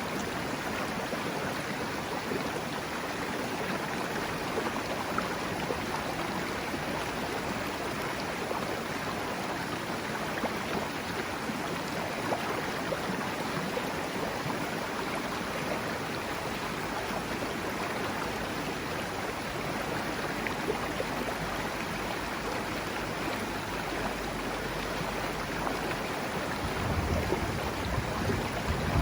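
Serio river flowing: a steady rushing of water, with a low rumble coming in near the end.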